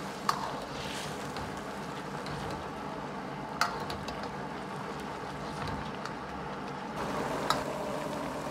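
Braising sauce bubbling at a steady boil in a wok around a whole carp over high heat, with a metal ladle clinking against the wok three times.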